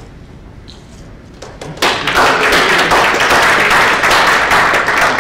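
Audience applause, starting about two seconds in and continuing as a loud, dense clatter of many hands clapping.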